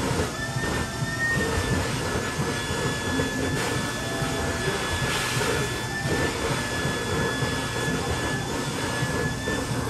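Build-A-Bear stuffing machine's blower running, a steady high whine over rushing air as stuffing is blown through the metal fill tube into a plush toy. The whine begins to fall away as the blower winds down at the very end.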